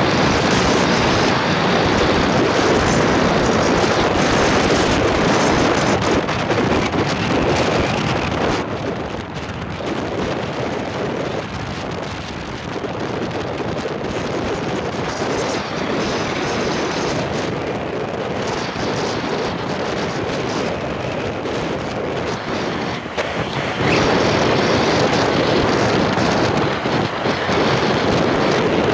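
Wind rushing over the microphone of a moving motorcycle, a loud steady rush. It eases off for a long stretch in the middle and picks up again about three-quarters of the way through.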